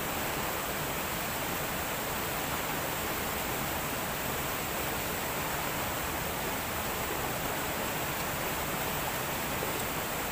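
River water rushing over rocks, a steady even wash of noise.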